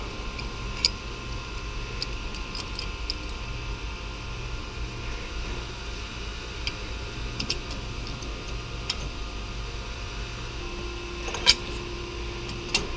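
Steady hum of plant-room machinery with scattered light metallic clicks and taps. A sharper click comes near the end, and a low steady tone joins shortly before it.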